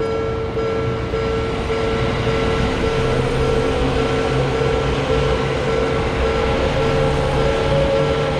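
Japanese level-crossing warning bell ringing about twice a second, over the low rumble of a train.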